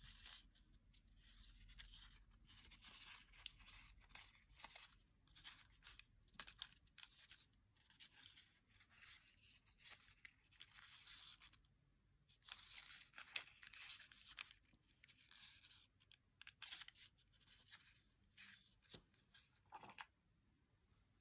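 Faint crinkling and rustling of origami paper in short, irregular bursts as fingers fold, pinch and shape a small paper model.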